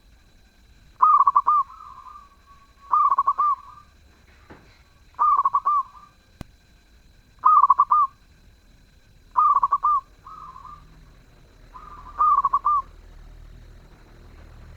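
Zebra dove (perkutut) cooing: six short rolling coos, each about half a second long, at roughly two-second intervals, some with a softer trailing note.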